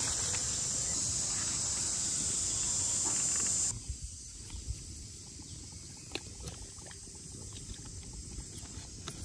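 A steady high-pitched hiss that cuts off abruptly about four seconds in. After that comes quieter outdoor background with scattered light clicks and crackles from the wood fire under a pan of steaming water.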